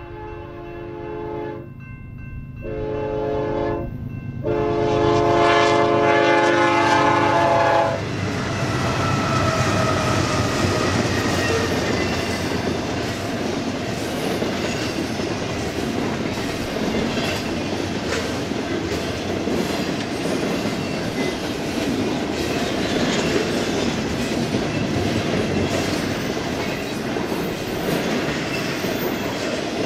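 BNSF freight locomotive's air horn sounding for a grade crossing in blasts, the last a long one that cuts off about eight seconds in. After it, a double-stack intermodal train's container cars roll past, with a steady heavy rumble and clatter of steel wheels on rail.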